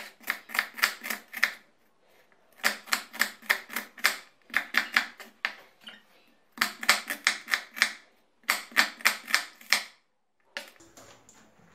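Kitchen knife chopping an onion on a wooden cutting board: rapid sharp knife strikes, about five a second, in five runs of a second or so separated by short pauses.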